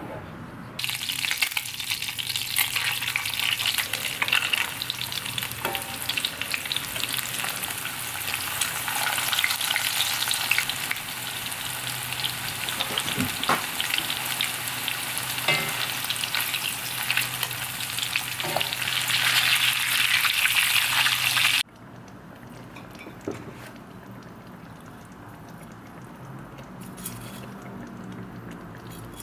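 Food frying in hot oil in a pan, a dense steady sizzle. It starts about a second in and cuts off suddenly near the end, leaving a much quieter stretch.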